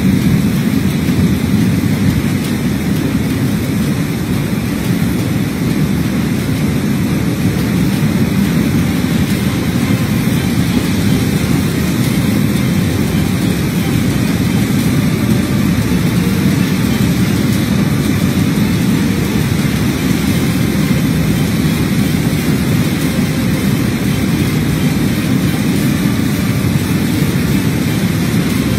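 Heavy rainstorm: a steady, low rumbling wash of pouring rain and wind that does not let up.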